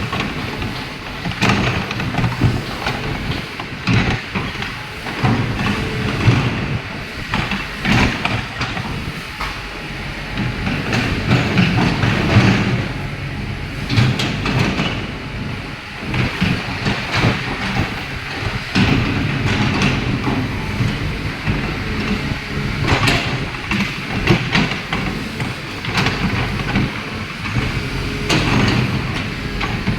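Kobelco excavator's diesel engine running and working, its note rising and falling, with frequent irregular clanks and knocks.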